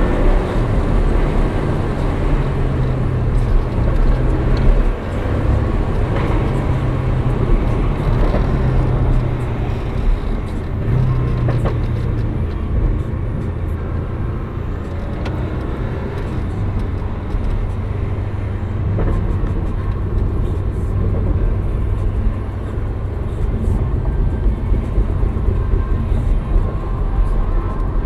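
Porsche 718 sports car's engine heard from inside the cabin while driving, over road rumble; the engine note keeps rising and dropping in pitch with throttle and gear changes.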